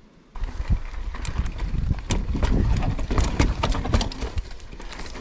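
Mountain bike clattering over a rough, rocky trail: a dense run of irregular knocks and rattles from the frame, chain and tyres, with a low rumble underneath. It starts suddenly about a third of a second in.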